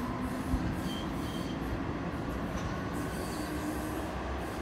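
Ottawa O-Train electric light-rail trains passing on an elevated track, a steady rumble of wheels on rail with a few brief high wheel squeals.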